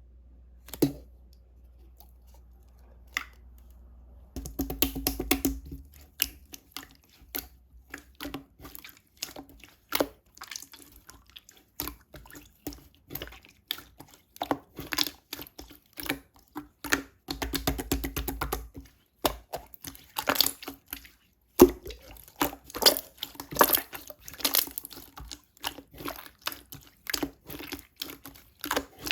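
Slime being squished and pressed by hand, giving a steady run of irregular sticky clicks and pops with a couple of longer squelching stretches.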